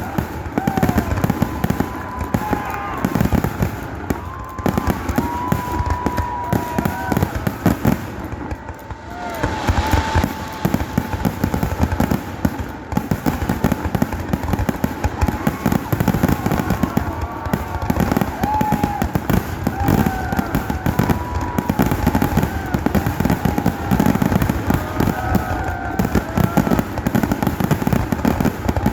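Fireworks finale: a rapid, nearly continuous barrage of bangs and crackles, easing briefly about eight seconds in before building again.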